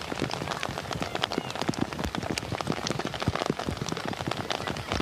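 Heavy rain: a dense, uneven spatter of drops striking a hard surface close to the microphone.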